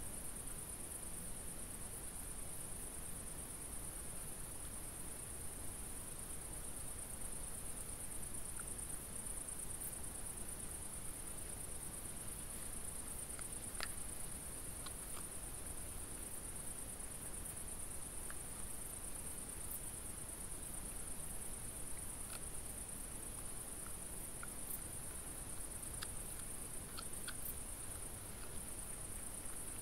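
Steady high-pitched chirring of night insects, unbroken throughout, with a few faint sharp ticks about halfway and again near the end.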